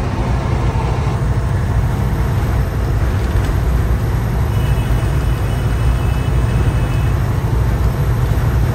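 Kenworth W900L semi truck's Cummins X15 diesel engine running with a steady, loud low rumble.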